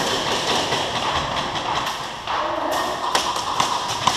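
Scattered sharp taps and thuds over a steady background hiss, coming thicker after about two and a half seconds: airsoft guns firing and BBs striking surfaces elsewhere in the building.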